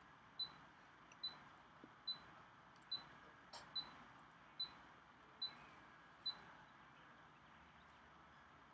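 Quiet room tone with a run of eight short, high-pitched ticks, evenly spaced a little more than one a second, that stop after about six seconds.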